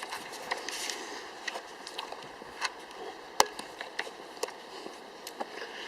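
Footsteps walking on the breakwater: irregular clicks and knocks, roughly one or two a second, with one sharper knock about three and a half seconds in, over a steady faint hiss.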